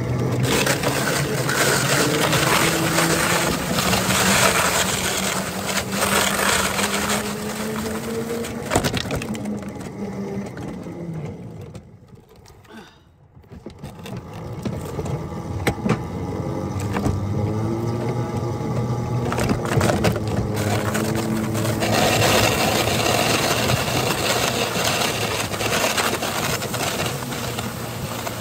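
A ride-on 7½-inch gauge locomotive pushing a snow plow along the track, its motor tone rising as it picks up speed, with the plow scraping through snow. Everything drops away almost to quiet about twelve seconds in as it stops briefly, then the motor builds up again and the scraping returns.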